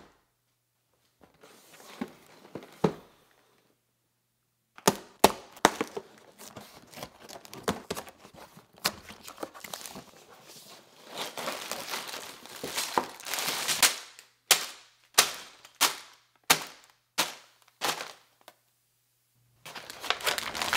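A cardboard LEGO set box being handled and torn open: rustling, then sharp cardboard snaps and rips with paper crinkling. Near the end comes a run of sharp snapping hits, about one every half second, as the paper parts bags inside are handled.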